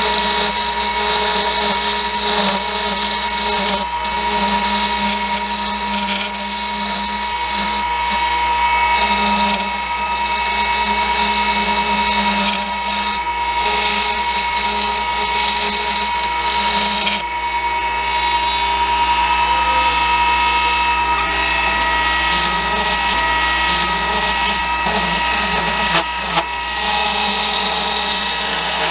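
A JET JWL-1221VS variable-speed wood lathe running with a steady whine while a carbide turning tool cuts a thin aromatic cedar spindle, the scraping of the cut over it.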